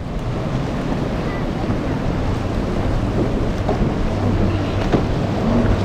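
Quad Mercury 350 outboard motors of a large center-console boat running steadily at speed through choppy water, with splashing spray and wind buffeting the microphone.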